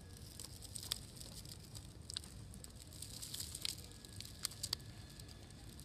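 Faint crackling of dry fallen leaves as a cat walks over them, with a few sharp clicks over a low steady rumble.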